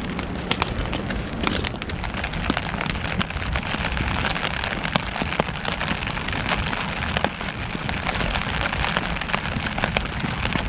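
Steady rain pattering, with many separate drops ticking irregularly.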